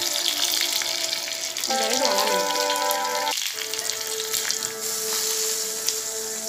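Hot oil sizzling in a small pan as curry leaves, garlic and dried red chillies fry for a tempering, with background music playing over it.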